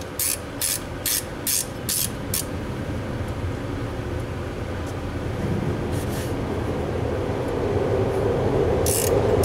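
Ratchet wrench clicking in an even rhythm, about three clicks a second, on the compressor's mounting bolts for the first couple of seconds. A steady low rumble then builds and is loudest near the end.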